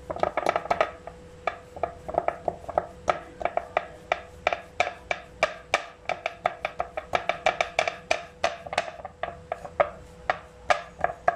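Hands patting and slapping soft butter-cookie dough flat on a ceramic plate: a quick, irregular run of sharp pats, about four a second.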